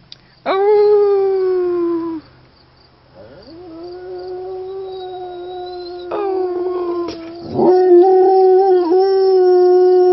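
English Springer Spaniel howling, set off by another Springer's howl. A loud howl starts about half a second in and sinks slightly in pitch over under two seconds. After a short pause a long howl rises and then holds steady, with brief breaks, until the end.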